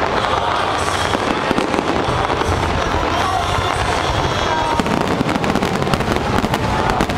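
A fireworks barrage: a dense, continuous stream of overlapping bangs and crackling from many shells bursting at once, with no let-up. A few faint short whistles or glides rise over it.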